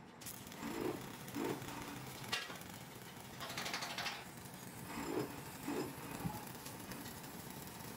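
Stick-welding arc on a steel air tank seam, crackling and hissing in uneven bursts as the electrode burns.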